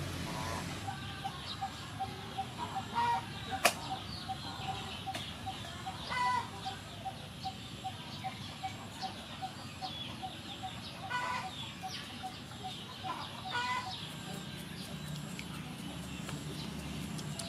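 Chickens clucking in short calls four times, over a rapid, steady ticking call of about four pulses a second. A single sharp knock comes about three and a half seconds in.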